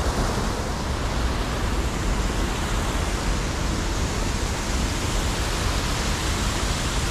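Steady, loud rushing noise with a fluttering low rumble underneath, with no separate strikes or calls standing out.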